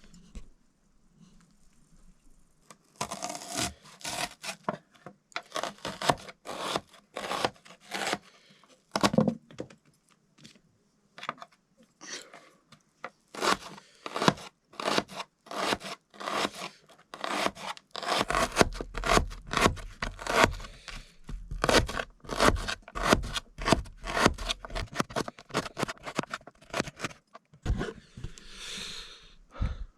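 Short scraping and rubbing strokes from hand food preparation in a small kitchen, coming in quick succession and turning into a fast, dense run about two-thirds of the way through.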